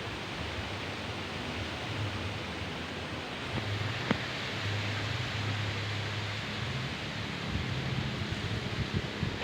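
Wind blowing through trees: a steady rustling hiss of leaves, with low wind buffeting on the microphone and a single sharp click about four seconds in.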